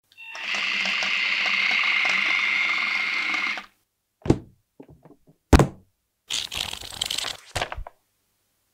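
Electric drive motor of a remote-controlled brick-built half-track model whirring steadily with a high whine for about three and a half seconds and then stopping. A dull thunk and a sharper knock follow, then a short burst of rustling and one more knock.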